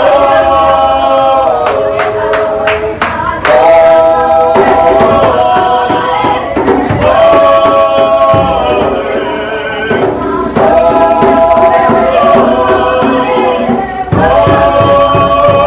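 A group of voices singing together in harmony, holding chords that shift every second or two, with a few sharp percussive hits about two to three seconds in.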